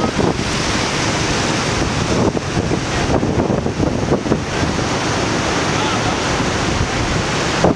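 Wind buffeting the microphone over the steady wash of ocean surf, with people talking in the background.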